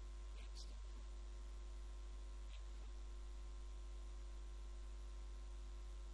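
Low, steady electrical mains hum with faint hiss from the recording system, with a couple of faint ticks about half a second and two and a half seconds in.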